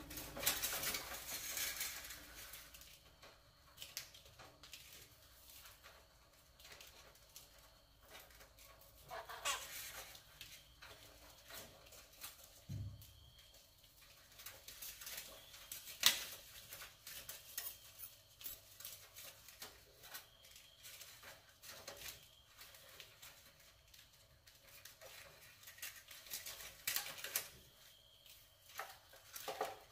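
Rats scrabbling on a wire-mesh cage trap and the metal can set in its top: faint scratching and light metallic clicks and clinks, with one sharper click about halfway through.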